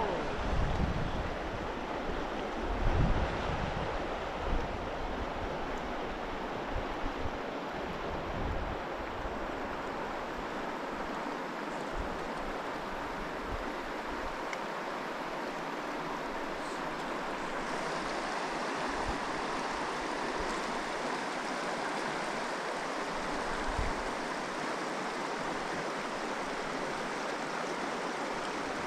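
Steady rush of a mountain stream's flowing water. There are a few low thumps in the first few seconds.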